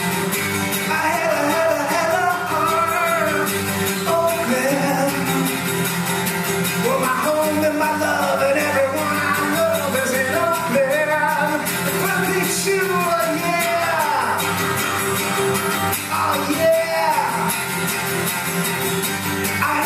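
Live song: a man singing to his own strummed acoustic guitar.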